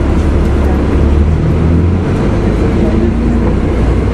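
Cummins ISL straight-six diesel of a 2004 Gillig Phantom transit bus running with a steady low drone. Its note drops slightly about halfway through.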